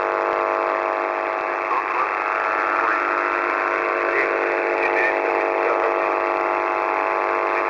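Shortwave radio reception on a Russian military frequency: steady static under a row of constant tones, with a few brief faint chirps, all with the thin, tinny sound of a radio receiver.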